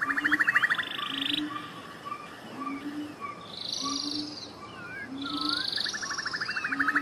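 A chorus of frog and bird calls. A low croaking note repeats about once a second under a fast rattling trill at the start and again near the end, with bursts of high chirping and scattered short whistles.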